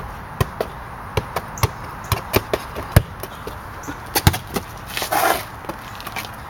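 Soccer ball being juggled and tapped off a foot: a string of irregular short thuds. A brief rustle comes about five seconds in.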